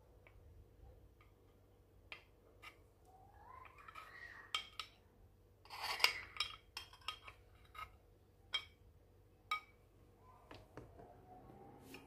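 A spoon clinking and scraping against a glass jar while stirring a thick mask paste. The clinks are sparse and sharp, with a quick cluster about halfway through.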